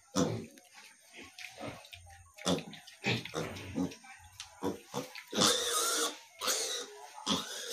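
A litter of young piglets grunting and squealing: short calls one after another, with a longer, louder squeal about five and a half seconds in and another just after it.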